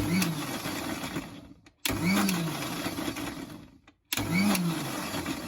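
Kitchen mixer grinder with a small-blade jar pulsed three times, chopping peeled orange segments. Each run starts sharply and its motor whine rises, then winds down and fades over about a second and a half. It is pulsed so the seeds stay unground.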